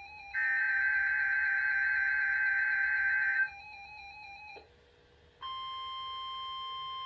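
Emergency Alert System tones from a tornado-drill broadcast: a harsh digital data burst (the SAME header) for about three seconds, then a brief dropout. About five seconds in, a single steady alert tone starts and holds. A faint warbling electronic tune plays under the data burst.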